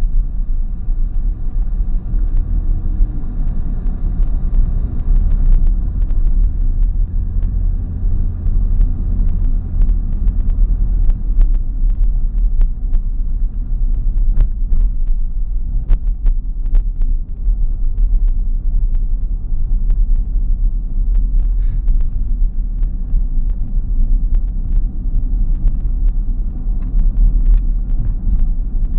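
Steady low rumble of a car driving, with scattered small clicks and knocks over it.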